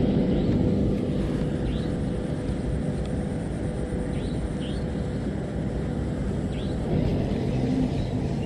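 Steady low outdoor rumble with a faint constant hum, and a few short, high rising chirps scattered through it.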